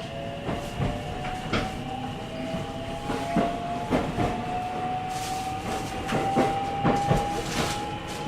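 JR 313 series electric multiple unit's IGBT VVVF inverter whine, climbing slowly in pitch as the train accelerates under power, over running rumble. Irregular knocks from the wheels passing rail joints.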